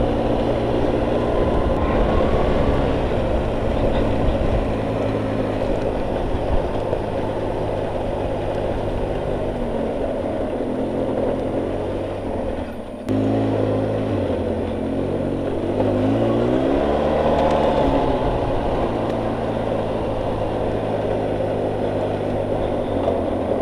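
ATV engine running while the quad is ridden along a rough field trail, its pitch rising and falling with the throttle. About halfway through the sound dips and jumps back abruptly, and a few seconds later the engine revs up and settles back down.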